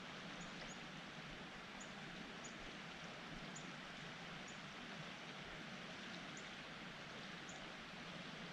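Steady faint rush of fast floodwater flowing and swirling in a creek, with a thin high chirp every second or so.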